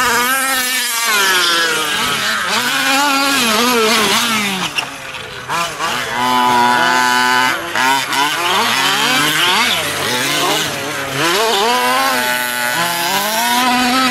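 Small two-stroke petrol engines of 1/5-scale Losi 5ive RC trucks being driven hard, revving up and down as the throttle opens and closes. Several engines overlap, their pitch rising and falling every second or so.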